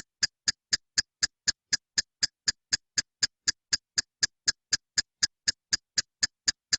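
A steady run of identical sharp ticks, about four a second, with dead silence between them: a clock-like ticking sound effect.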